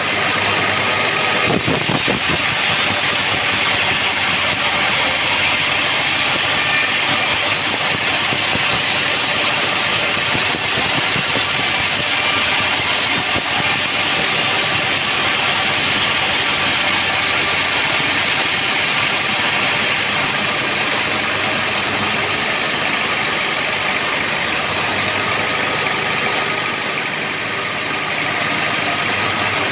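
Homemade band sawmill running steadily, its blade sawing through a trembesi (rain tree) log, with a slight dip in loudness near the end.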